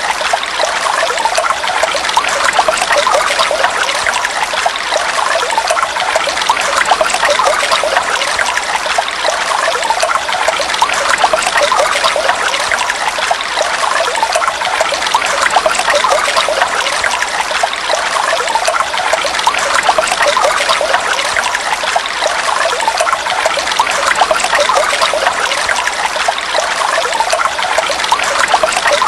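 Heavy rain falling steadily: an even, unbroken hiss of countless drops.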